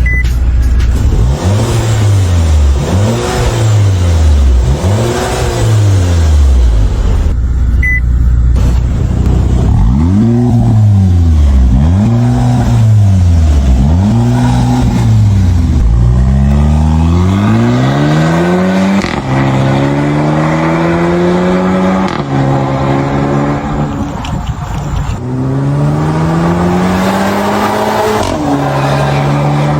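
VW Tiguan R-Line engine revving through an RES valved aftermarket exhaust. It starts with a series of quick throttle blips, each rising and falling in about a second, and about halfway through moves to longer climbs that hold high revs for a few seconds before dropping back.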